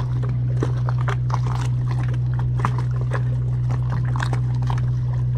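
Steady low hum of the moored fishing boat's running machinery, with short irregular ticks and splashes of water lapping against the hulls.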